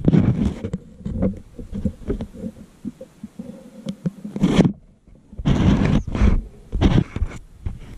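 Ballpoint pen scratching and rubbing on paper close to the microphone, irregular strokes, with several louder rustling bursts in the second half.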